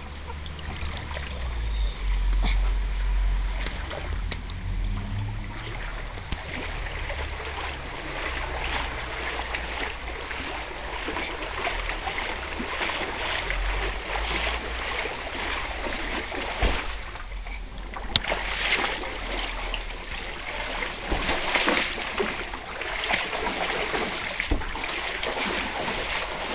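Floodwater splashing and sloshing in many irregular splashes, which grow busier after about eight seconds, with a low rumble in the first few seconds.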